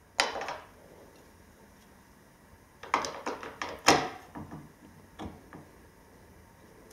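A model-aircraft display stand with a wooden base set down on a glass tabletop with a sharp knock, then several clicks and knocks about three to four seconds in, and one more a second later, as the model airliner is fitted onto the stand's metal arm.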